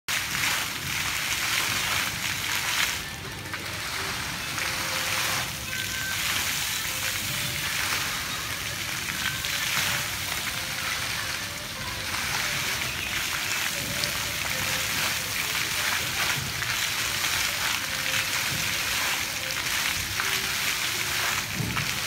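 Rows of fountain water jets shooting up and splashing back into the pool: a steady hiss of falling water, easing briefly about three seconds in.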